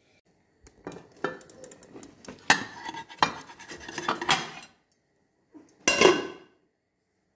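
A metal pan and a ceramic plate clatter as a cooked flatbread is turned out of the pan onto the plate. There are several sharp clinks and knocks over a few seconds, then one louder clatter about six seconds in.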